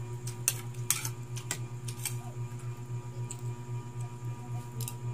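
Metal spoon and fork clinking against a ceramic plate while eating noodles. There are several sharp clinks, the two loudest about half a second and a second in, over a steady low hum.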